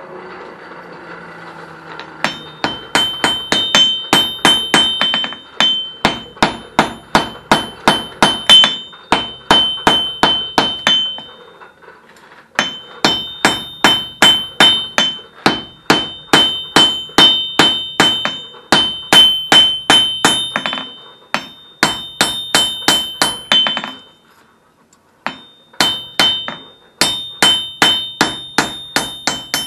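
Hand hammer forging red-hot mild steel on an anvil: quick blows, about three a second, each with a bright metallic ring. The blows come in three runs with short pauses between them.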